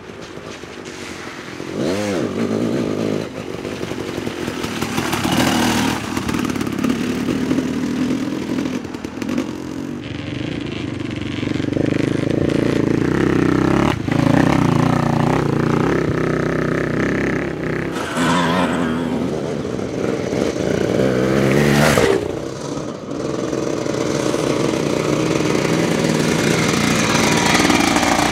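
Classic enduro dirt bikes riding past one after another, their engines revving and changing pitch as each one goes by.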